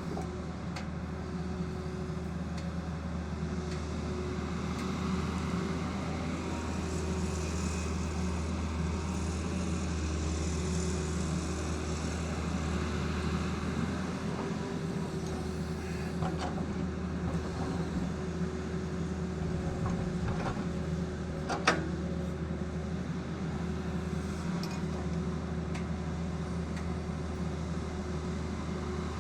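Tata Hitachi excavator's diesel engine running steadily, with a few knocks and one sharp clank about two-thirds of the way through.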